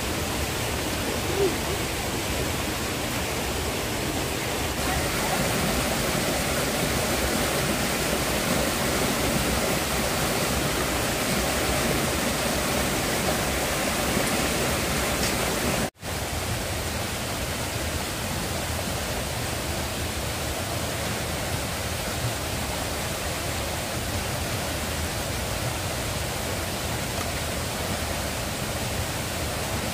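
Steady rushing noise with no distinct events, cut by a brief dropout about halfway through.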